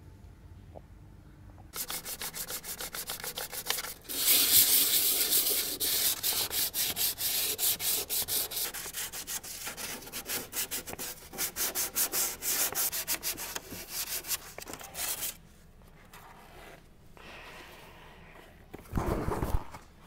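Hand sanding of the painted steel firewall in a VW Golf Mk2 engine bay: rapid back-and-forth rubbing strokes, starting about two seconds in and stopping a few seconds before the end, to key the surface for paint. A brief louder rustle comes near the end.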